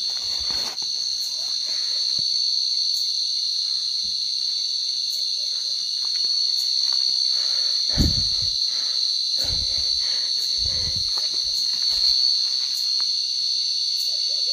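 Steady, high-pitched chorus of night insects, a continuous shrill drone. A few low thumps break in, the loudest about halfway through.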